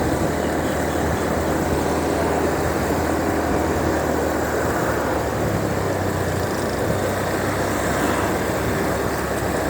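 Motorbike engine running steadily while riding, under a constant rush of wind on the microphone.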